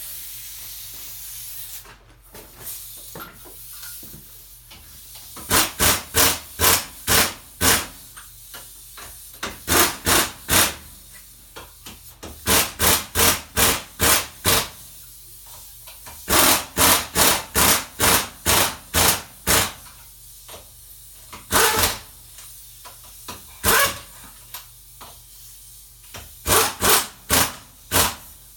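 Impact wrench fired in short, loud bursts, about three a second, in several runs separated by pauses, as wheel lug nuts are run down and tightened. Used this way it can over-torque the nuts.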